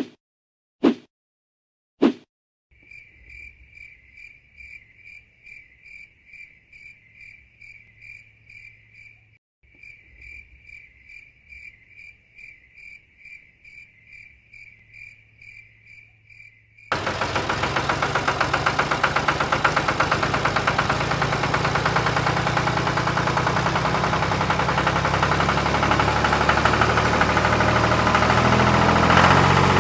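A few short sharp clicks, then a cricket chirping in a steady, even rhythm. About seventeen seconds in, the small motor of a model mini tractor starts abruptly and runs fast and loud, getting a little louder, with its pitch rising slightly near the end, as the tractor drives through a muddy water pit.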